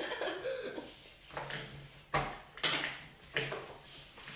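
A few short, light knocks and clatters of painting things: a paintbrush knocking in a plastic water pot and against a watercolour paint box on a wooden table.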